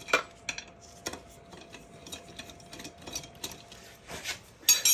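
Metal tools and engine parts being handled: scattered light clicks and taps, with a louder clink near the start and a bright metallic clink that rings briefly near the end.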